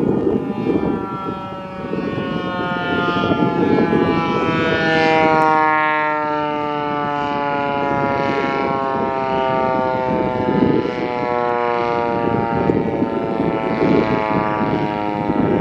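American Signal T-128 outdoor warning siren sounding a steady tone that slowly falls in pitch, swelling louder about a third of the way through. A low rumbling noise runs underneath.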